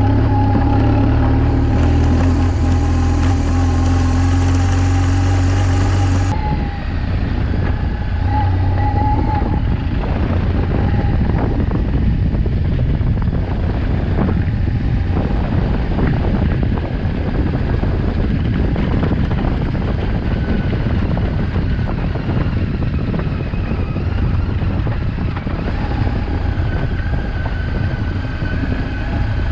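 BMW R1200GS flat-twin engine running steadily on the move, with wind and road noise. About six seconds in the sound changes abruptly, and after that the engine is heard under a rougher rushing noise.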